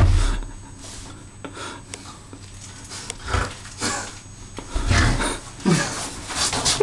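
Microphone handling noise from a handheld camera: rubbing and scraping, with a few deep bumps, one right at the start and others about three and a half and five seconds in.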